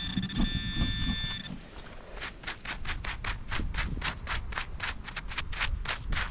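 Metal detector sounding a steady, multi-pitched target tone for about a second and a half. Then rapid, even scraping in the dirt, about five strokes a second, as the ground over the target is dug away.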